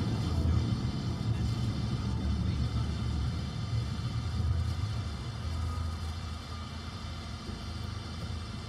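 Low, steady rumble of a car's engine and tyres heard from inside the cabin while driving. It gets quieter in the second half as the car slows behind a braking vehicle.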